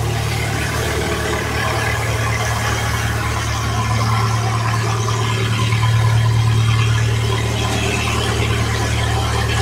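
Engine running steadily at constant speed with a deep, even hum, the motor that drives the pump for the mining water jets.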